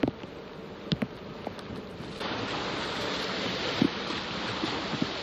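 Steady outdoor wind and water noise with a few scattered small knocks; the noise gets suddenly louder and brighter about two seconds in.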